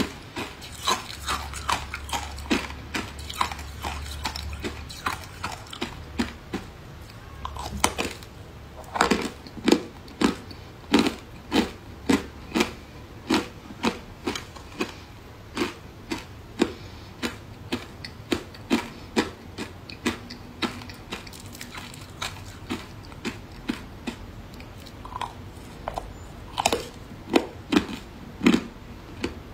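Matcha-powdered ice cubes being bitten and chewed close to the microphone: repeated crisp crunches, sparse at first, then a steady run of about one or two a second.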